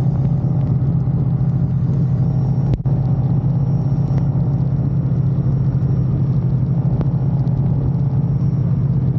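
Harley-Davidson touring motorcycle's V-twin engine running steadily at highway cruising speed, heard from the rider's seat with wind and road noise mixed in. The sound breaks off for an instant a little under three seconds in.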